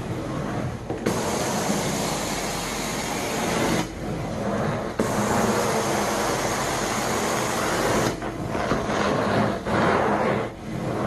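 Carpet cleaning suction machine running and drawing air over carpet in strokes. A strong hiss cuts in and out: on about a second in, off for a moment near four seconds, then choppy, shorter strokes toward the end.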